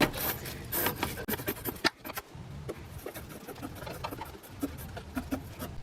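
Scattered light clicks, taps and scratches of hand work on battery-terminal parts and tools, with no steady machine sound.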